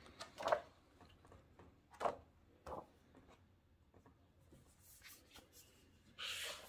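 Pages of a large hardcover cookbook being turned by hand: soft paper swishes about half a second, two seconds and nearly three seconds in, then a longer paper rustle near the end.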